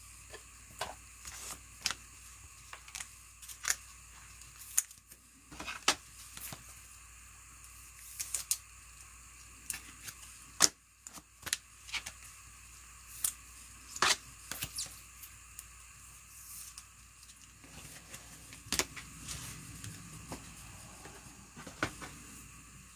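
Trading cards being handled and flipped through by hand: light, irregular clicks and taps, about one or two a second.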